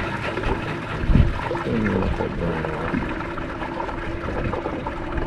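A bass boat's bilge pump running with a steady hum while water splashes from its discharge, pumping out the little water that backwashed into the hull when the engine was shut down.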